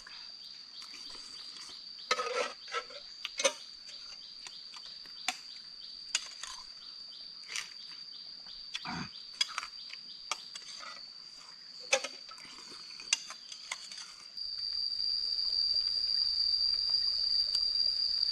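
Insects chirring in a steady high-pitched drone, with scattered clicks and knocks of eating utensils against a dish. About fourteen seconds in, the drone grows louder.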